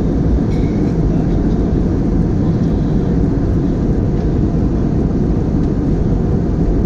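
Steady low drone of an airliner cabin in cruise flight: engine and airflow noise heard from a window seat.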